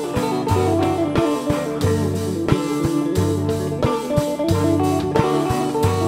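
Live band playing an instrumental passage: electric guitar lines over repeating deep bass notes, with regular percussion hits.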